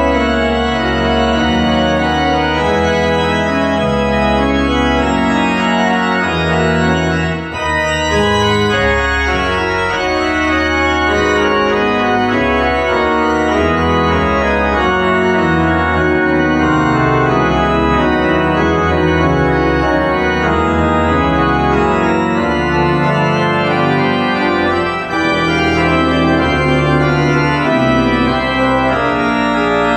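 Church pipe organ playing full, sustained chords over deep bass notes, the chords changing every second or so. The sound breaks off briefly twice, about 7 and 25 seconds in.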